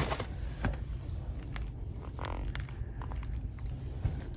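A few light clicks and soft handling rustles over a steady low background hum.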